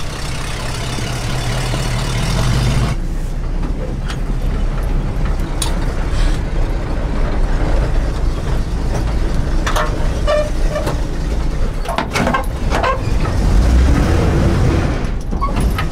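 1972 Ford C600 cabover truck's FE V8 engine running as the truck pulls away, heard from outside and then from inside the cab, with several sharp knocks partway through. The engine is short of power, which the driver puts down to the truck being nearly out of gas.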